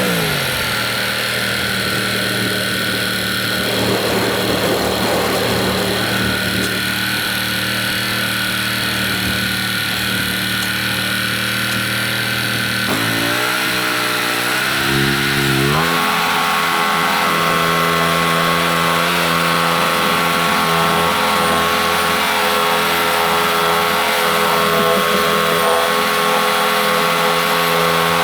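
Gas engine of a Norwood MX34 portable bandsaw mill running steadily under load as the band blade saws a board from a pine log, with a hiss of cutting over the engine. About halfway through, the engine note wavers and shifts for a few seconds, then settles back to a steady run.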